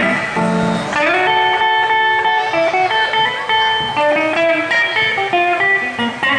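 Archtop hollow-body electric guitar playing an instrumental blues solo through an amplifier: a run of single notes with bent, sliding notes, moving higher up after about a second.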